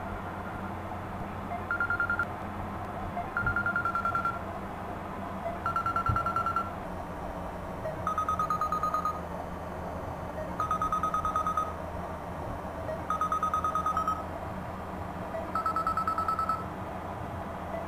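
Telephone ringing with an electronic ring tone. A pulsing, trilling tone about a second long repeats roughly every two and a half seconds, about seven times, over a steady low hum.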